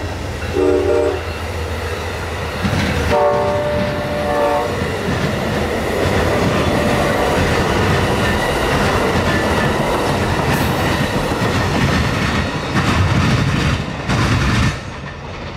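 Amtrak passenger train with a GE Genesis locomotive passing close by. Its horn sounds twice in the first five seconds, a short blast and then a longer one, while the cars rumble and clack over the rail joints. The noise drops off suddenly near the end as the last car goes by.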